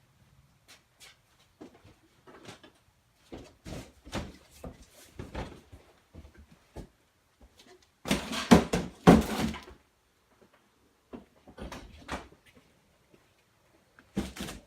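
Cardboard box being fetched and handled: scattered knocks and bumps, with a loud burst of cardboard scraping and rustling about eight seconds in, lasting about two seconds.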